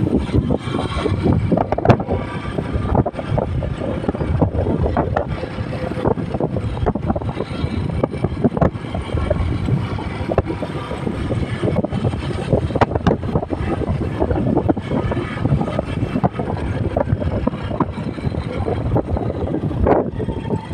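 Motorcycle running along at a steady pace, mixed with heavy wind buffeting on the microphone and frequent short knocks and rattles.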